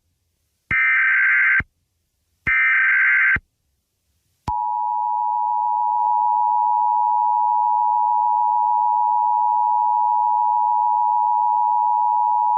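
Emergency Alert System tones: the last two bursts of the SAME header, each about a second of warbling digital data, then about a second later the EAS two-tone attention signal, a steady dual tone that starts with a click and holds unbroken.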